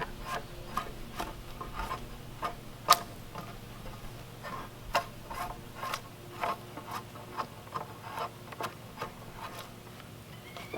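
A series of light, irregular knocks and taps, about two a second, with one sharper knock about three seconds in, over a steady low hum.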